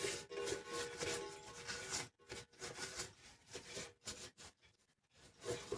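Brush scrubbing dirt off a vintage cuckoo clock's parts in irregular strokes, pausing briefly twice.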